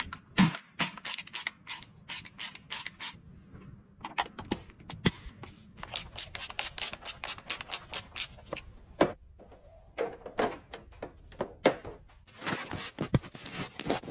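Repeated short rubbing or rasping strokes, a few a second and unevenly spaced, with a brief pause about four seconds in.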